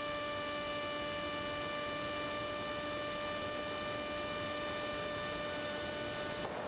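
Electric motor and propeller of a Multiplex EZ Star model plane running at a steady throttle, a constant hum from the onboard camera. About six and a half seconds in, the hum cuts out and rushing wind is left, as when the throttle is closed and the plane glides.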